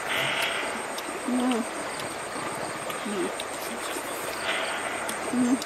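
Steady rush of a shallow river running over stones, with three short low calls over it: about a second and a half in, at about three seconds, and near the end.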